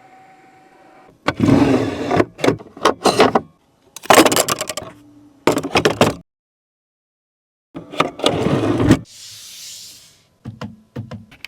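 Operating sounds of a Mercedes-AMG GLC 43 in a string of short clips: sharp clicks, latch-like knocks and mechanical rubbing, broken by a second or so of dead silence partway through, with a soft hiss near the end.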